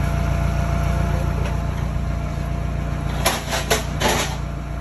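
Steady low drone of an idling engine. A few short noisy handling sounds come about three to four seconds in.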